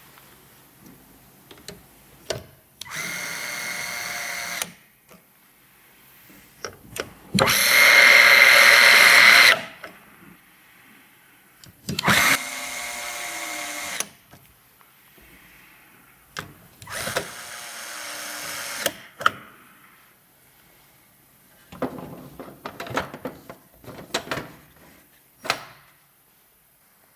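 Small electric screwdriver running in four short bursts of about two seconds each, with clicks and knocks of parts being handled between them. The second burst is the loudest.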